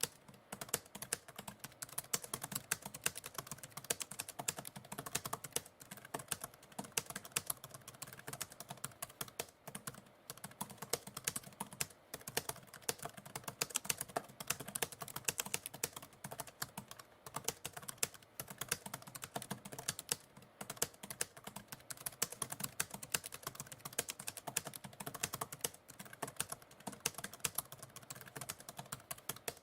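Typewriter keys clacking in a fast, continuous run of strikes, with brief pauses every few seconds.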